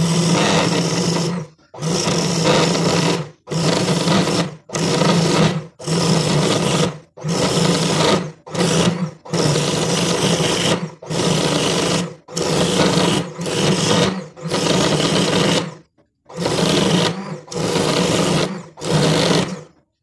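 Electric coconut scraper's motor running with a steady hum as its spinning serrated head grates the flesh out of a half coconut shell. It comes in short bursts of about a second each, breaking off between them.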